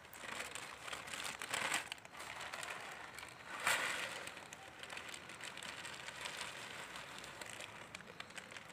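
Plastic carry bag and food packet crinkling as they are unwrapped and handled, in irregular bursts that are loudest about a second and a half in and again near four seconds.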